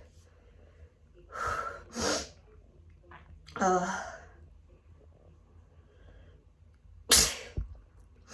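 A person sneezing repeatedly in a hay fever fit set off by grass and flower pollen. There are several separate sneezes with pauses between them, and the loudest, sharpest one comes about a second before the end.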